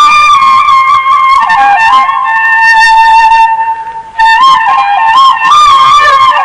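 A Sindhi ringtone tune: a single flute melody with held notes and quick ornamented turns, which breaks off briefly about four seconds in and then resumes.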